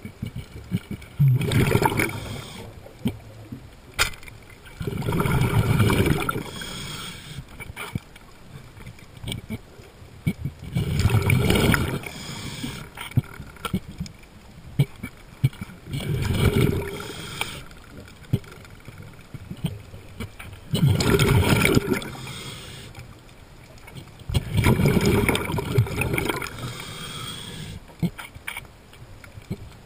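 A diver's underwater breathing: a rushing, gurgling burst of exhaled bubbles roughly every five seconds, with quieter water sound in between.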